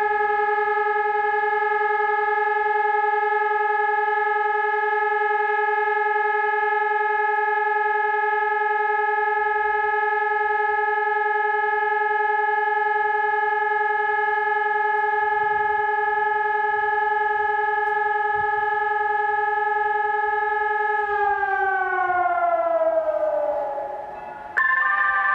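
Telegrafia Pavian 1800 electronic siren sounding the Czech 'siren test' signal, one steady unwavering tone, which near the end falls in pitch and fades as the signal winds down. A different, higher steady tone starts abruptly just before the end.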